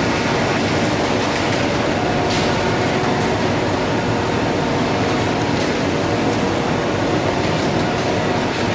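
Belt conveyor on a packing line running with steady machine noise, with a few faint clicks.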